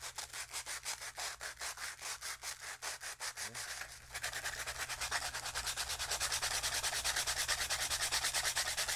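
Coarse 80-grit sandpaper rubbed by hand along the edge of a wooden rocket fin in quick, even back-and-forth strokes, bevelling the edge to a taper. The strokes pause briefly about four seconds in, then come louder and faster.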